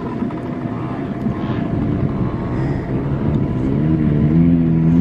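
Dirt bike engines running with a steady rumble. About three and a half seconds in, a nearby engine's drone comes up, rises a little in pitch, then holds steady and gets louder.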